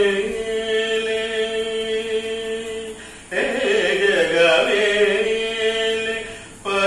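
A man singing a devotional song solo, in long chant-like phrases: one note held steady for about three seconds, a short breath, then a second phrase that moves up and down before settling on a held note.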